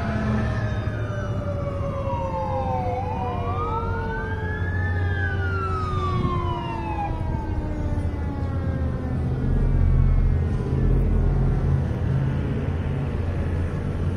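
Fire engine siren wailing up and down twice, with a lower tone sliding slowly down underneath. The siren stops about seven seconds in, and the truck's engine rumble grows louder as it approaches.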